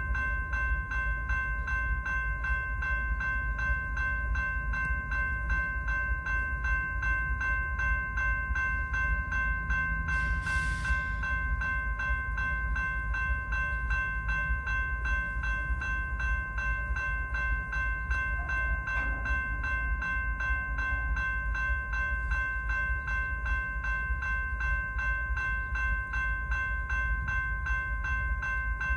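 Railroad grade-crossing warning bell ringing steadily, fast even strikes several times a second, over a low rumble, with a short hiss about ten seconds in.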